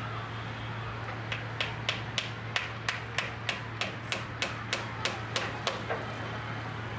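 A run of about sixteen sharp taps, evenly spaced at roughly three a second, starting about a second in and stopping about six seconds in.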